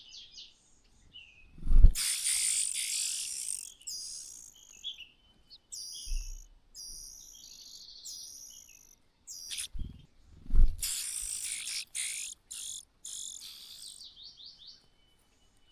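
Bird chirping: many short, high chirps, and two loud, harsh, noisy stretches, each opening with a thump, about two seconds in and about ten and a half seconds in.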